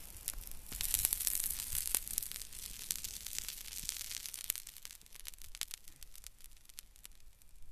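Potassium permanganate and glycerin igniting in a cotton pad: a hissing, crackling flare-up as the mixture bursts into flame. The hiss is strongest in the first couple of seconds, then fades to scattered crackles.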